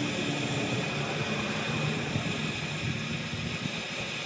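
A fan running steadily: an even hiss with a faint constant high whine.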